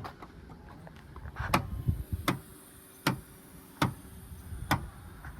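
2015 Subaru power lift gate clicking as it opens: about six sharp clicks, one every three-quarters of a second or so, over the faint steady hum of the lift mechanism. The clicking comes only during opening, and the owner traces it to the internal spring by the lift motor popping as it rotates on its post for lack of white lithium grease.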